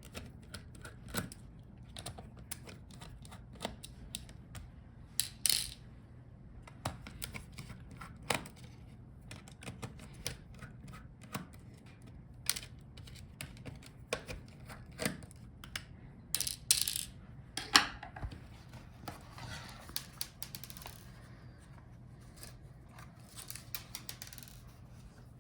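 Irregular small clicks, taps and light clinks of a screwdriver and tiny metal screws while a laptop's hinge screws are taken out and its parts handled, with a few brief scraping rustles.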